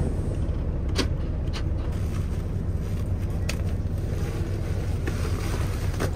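Semi truck's diesel engine idling, a steady low rumble heard inside the cab. A few sharp clicks and rustles come over it as the cab curtains are pulled closed.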